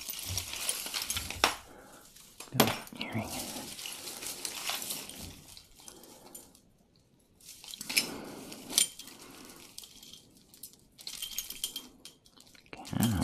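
Costume jewelry being handled and sorted: metal pieces, chains and beads clinking and rustling, with a few sharp clicks and a short quiet pause midway.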